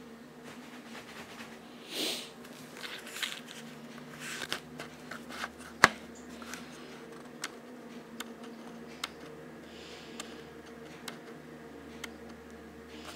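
A person sniffling through the nose several times in short hissy sniffs, over a steady low hum. A sharp click about six seconds in is the loudest sound, followed by a few fainter ticks.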